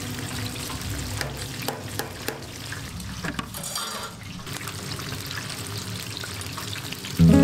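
Battered strips sizzling in a deep fryer's hot oil, with scattered light clinks of metal tongs and a mesh skimmer against the fryer. Loud music starts just before the end.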